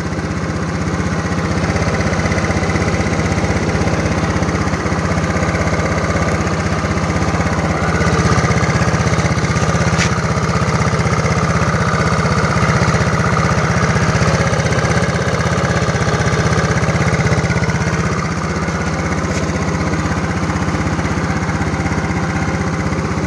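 Yamaha Mio scooter's single-cylinder four-stroke engine running steadily after a rebuild with an oversize piston, which followed a piston pin seized from oil starvation. It sounds smooth, like a normal engine and not rough, a sign the repair has worked. The engine speed rises a little about eight seconds in and settles back around eighteen seconds.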